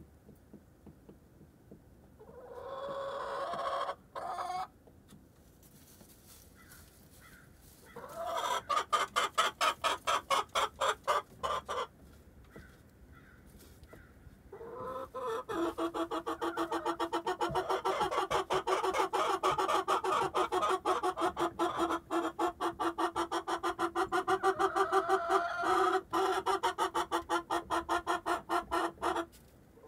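Domestic hens clucking: a short call, a quick run of fast clucks about eight seconds in, then a long, unbroken run of fast, evenly pitched clucks from about fifteen seconds in until just before the end.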